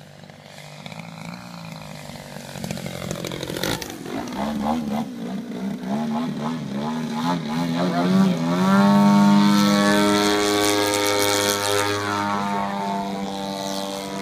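Engine and propeller of a radio-controlled Hangar 9 Extra 300 aerobatic plane in flight, getting louder as it comes closer. Its pitch rises and falls in quick waves as it manoeuvres, then holds steady from about nine seconds in, where it is loudest.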